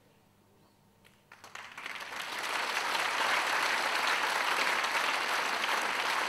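Audience applauding: a few scattered claps about a second in, swelling within a couple of seconds into full, steady applause.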